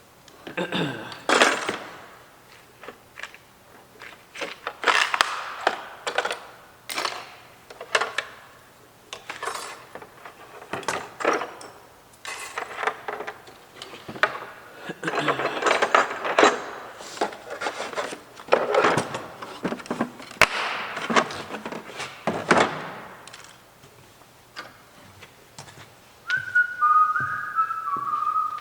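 Irregular handling noise, rustles and light knocks of things being moved about while a rotary tool is set up. Near the end a person starts whistling a tune.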